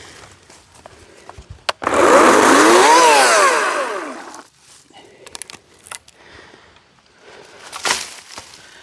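Chainsaw revved once for about two and a half seconds, its engine pitch rising and then falling back, with a few sharp knocks and light rustling around it.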